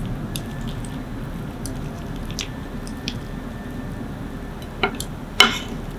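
A ceramic spoon scooping into pan-fried grouper with a crisp skin and a fried ginger and shallot topping: soft squishes and small crackles, then two sharper clicks near the end, the second the loudest.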